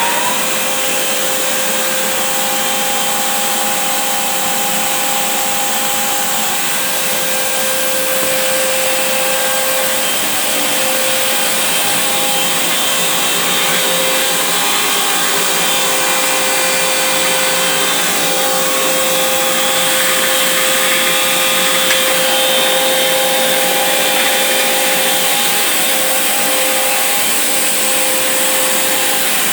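Giant grinder with wheels of about 30 inches running steadily at full speed after spinning up. A steady whine over an even airy hiss.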